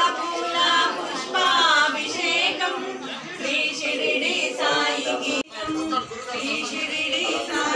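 Devotional singing by voices, with sung notes that waver in pitch, broken by a brief dropout about two-thirds of the way through.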